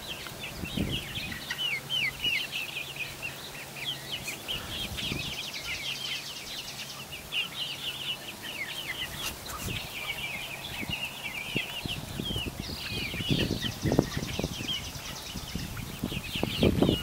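A flock of young chickens peeping and chirping continuously with short, falling high-pitched calls. Scattered soft thumps come through, more of them near the end.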